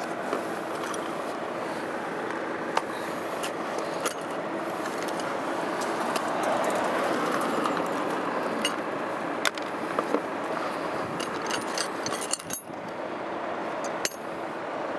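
Metal hand tools (wrenches and a screwdriver) clinking against each other in a fabric tool bag as a hand rummages through it, over steady rustling of the bag. Sharp clinks come scattered throughout, several in quick succession about eleven to twelve seconds in.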